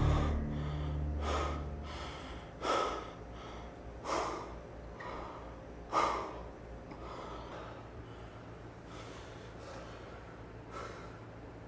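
A man gasping and breathing hard through his mouth, out of breath: a few sharp gasps about every one and a half seconds, then softer breaths after the middle.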